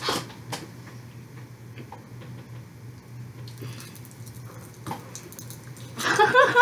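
Popping candy crackling in an open mouth: a scatter of faint, irregular tiny ticks and snaps. A voice comes back in near the end.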